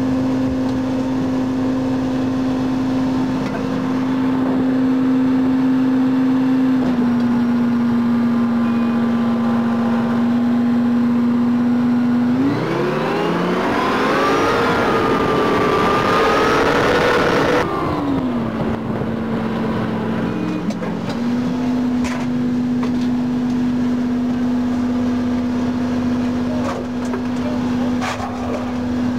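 Armoured personnel carrier's engine running with a steady hum. For about five seconds near the middle it revs up, rising in pitch, holds, then drops back to its steady note.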